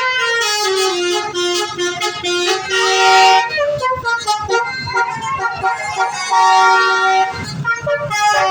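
Indonesian 'telolet' bus horn, a multi-tone musical air horn, playing a tune of short held notes that step up and down in pitch. It is loudest about three seconds in and again around six to seven seconds.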